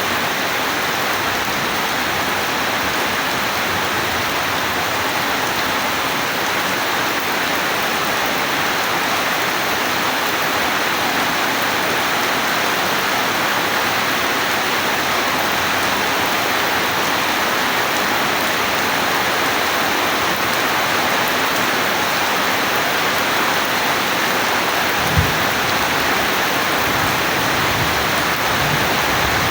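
Steady heavy rain falling, an even hiss with no let-up. Near the end there is a single brief low thud, followed by a few faint low rumbles.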